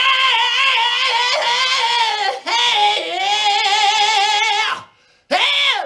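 A man's voice imitating a hard-rock singer with long, strained, high sung notes. They are squeezed through a tightened throat and pushed forward into the nose, with a wavering pitch. Two long notes are followed by a short one near the end.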